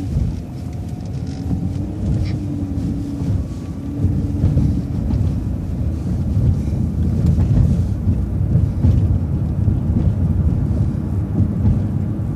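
Vehicle driving: low engine and road rumble heard from inside, with wind buffeting the microphone. It gets a little louder about four seconds in, and a faint steady hum runs under it for the first few seconds.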